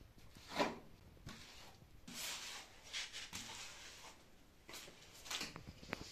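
Wooden float pressing and scraping fibred earth-lime plaster onto a brick stove: a series of rough scraping swishes, the loudest about half a second in, with others around two, three and five seconds in.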